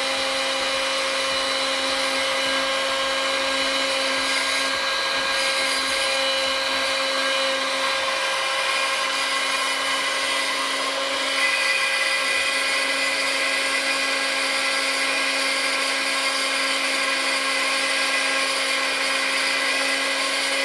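A 2000-watt heat gun running on its high setting: a steady fan whine with rushing air, heating a circuit board to melt the solder on its capacitors. A higher tone joins in about halfway through.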